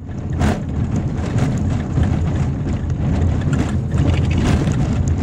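Car interior while driving slowly over a broken, patched concrete road: a steady low rumble of engine and tyres, with knocks and rattles from the car jolting over the bumps.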